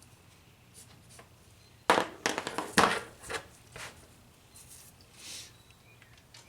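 Several sharp metallic clicks and clatters, irregularly spaced over about two seconds, as hand tools are worked on a cylinder head bolt, followed by a brief, softer scratchy rustle.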